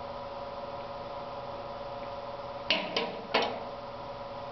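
A metal rivet gun set down on the step of an aluminium stepladder: three sharp knocks close together about two and a half seconds in, over a steady electrical hum.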